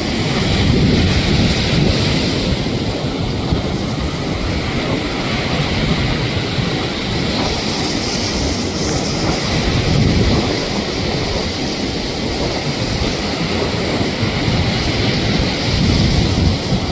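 Wind buffeting the microphone over a steady rushing noise, with low gusts swelling about a second in, about ten seconds in and near the end.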